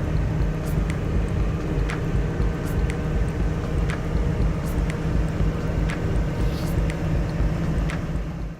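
Engine running steadily, with a sharp click about once a second.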